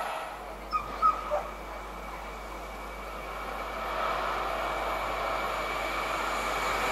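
Train noise on the main line dying away, with three short sharp sounds about a second in; the rumble of a train then builds again toward the end.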